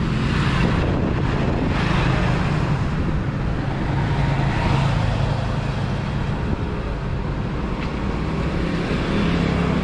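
Road traffic close by: vehicle engines running with a steady hum over road noise.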